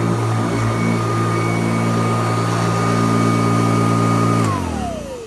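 Kirby Classic III upright vacuum cleaner running with a steady motor hum and whine, then switched off about four and a half seconds in, its motor whine falling in pitch as it winds down.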